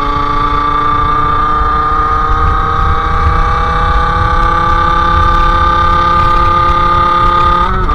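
Sherco SM-R 50's 50cc two-stroke engine through a KRM exhaust, pulling under load with its pitch slowly rising. Near the end the pitch briefly dips, then picks up again.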